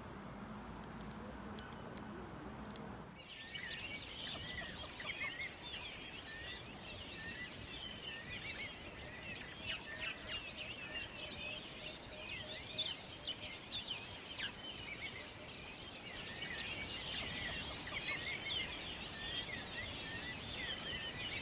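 A chorus of many small birds chirping and twittering over one another, starting abruptly about three seconds in after a short stretch of low steady hum.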